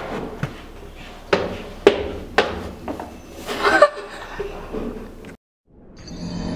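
Four sharp knocks or thumps about half a second apart, followed by a short laugh. The sound then cuts out abruptly, and a steady low drone fades in near the end.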